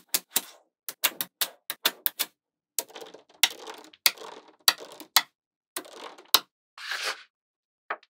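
Small neodymium magnetic balls clicking together as strips of them are snapped onto a slab of balls: a string of sharp clicks, a few a second, with a short rattle near the end.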